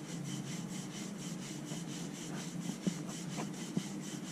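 Wooden rolling pin rolling a stuffed aloo paratha back and forth on a chakla rolling board: a steady rubbing, with a few light knocks.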